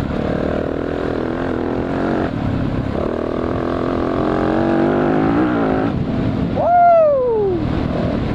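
Yamaha dirt bike engine running as the bike is ridden, its pitch shifting with the throttle. About six and a half seconds in, it revs up sharply and then winds down over about a second as the throttle is closed.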